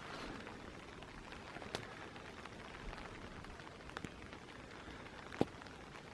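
Light rain falling, an even soft patter with a few louder single drops tapping close by, the sharpest near the end.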